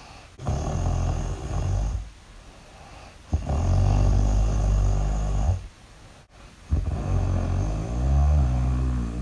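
Loud snoring: three long, rumbling snores of about one and a half to two seconds each, separated by short quiet breaths, the last one wavering in pitch.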